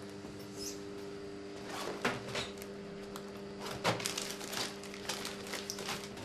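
Espresso machine pump humming steadily while a coffee is brewed. Two sharp knocks land about two and four seconds in.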